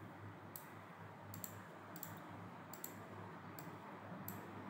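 Faint computer mouse clicks, several short ticks at irregular spacing, over a low steady hum.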